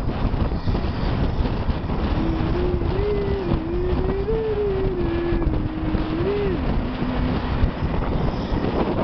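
Strong wind buffeting the microphone on the roof of a moving pickup truck, over the rumble of the truck and road. For about five seconds in the middle, a voice hums a wavering tune.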